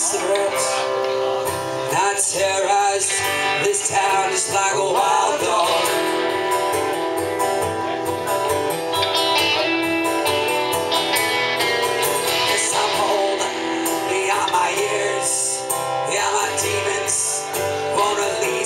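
Acoustic guitar strumming with an electric guitar playing along in an instrumental passage of a song.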